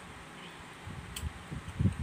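Close-up chewing and mouth sounds of someone eating soft papaya: low, irregular sounds starting about a second in, a sharp click a little after that, and the loudest just before the end, over a steady fan hiss.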